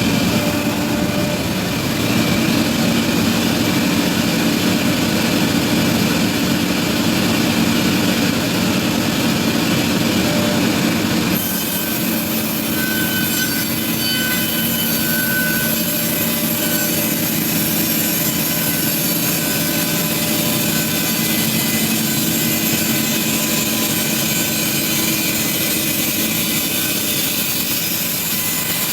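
Sawmill machinery running and sawing wood, a loud steady mechanical noise. About eleven seconds in, the sound changes abruptly to a different steady machine sound with thin high whining tones.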